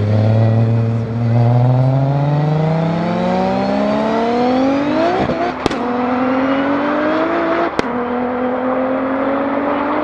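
Turbocharged V6 of a heavily modified Audi S4 B5 accelerating flat out from a rolling start. The engine note climbs steadily, drops at an upshift about halfway through and again near three-quarters of the way, with a sharp crack at each shift, then rises again.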